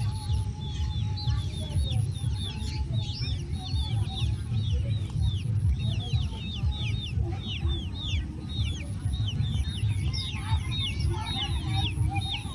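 Birds chirping in a rapid, busy chorus of short, high chirps that fall in pitch, several a second, over a steady low rumble.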